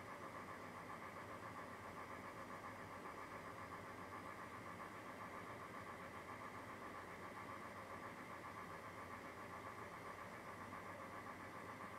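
Steady low mechanical hum with a fine rapid flutter, unchanging throughout.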